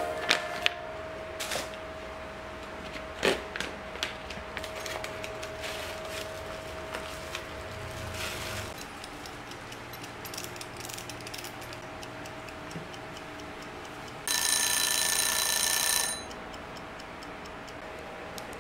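Mechanical wind-up kitchen timer: scattered clicks and ticking as the dial is handled and turned. About three quarters of the way in its bell rings for roughly two seconds.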